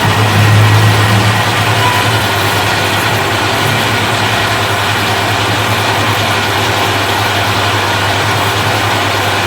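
Heavy-duty lathe running, a steady mechanical whir and gear noise over a low hum, a little louder in the first two seconds.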